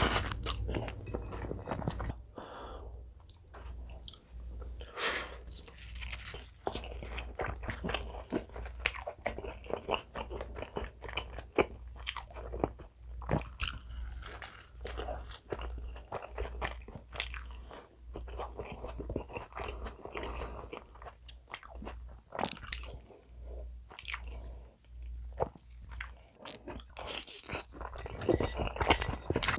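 Close-miked eating: spaghetti slurped in at the start and again near the end, with bites of bacon potato pizza and wet chewing in between, the crust crunching.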